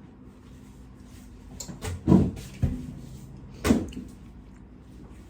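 A few dull thumps and knocks, the loudest about two seconds in and another a bit under four seconds in.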